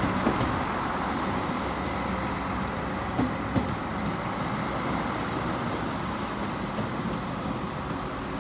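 Steady vehicle noise, with two short knocks a little past the middle and a fast, even, high-pitched ticking.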